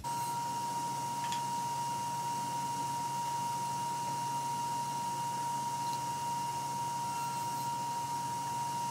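A steady, pure electronic test tone at one unchanging pitch, held without a break over faint hiss.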